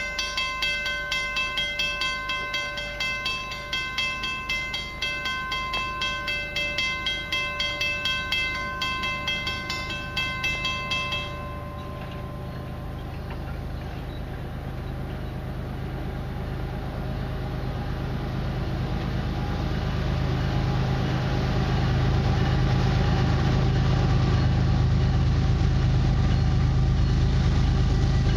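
Level-crossing warning bell ringing in quick repeated strokes, stopping about 11 seconds in. Then the low rumble of an approaching freight train led by a CN diesel locomotive grows steadily louder as it nears the crossing.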